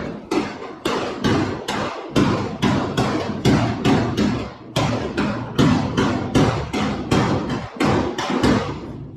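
Body hammer tapping a steel car body panel in a steady run of sharp metallic strikes, about three a second, working out a small low spot in the panel. The strikes stop near the end.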